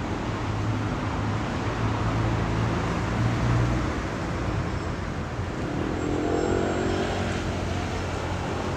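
Steady low rumble and hiss of background noise, with a low hum that is strongest in the first few seconds. A faint pitched sound rises and fades about six to seven seconds in.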